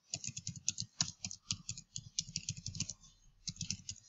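Rapid typing on a computer keyboard, a quick run of key clicks with a short pause a little after three seconds in.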